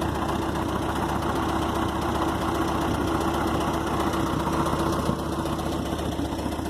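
Skid steer loader's engine running at a steady idle.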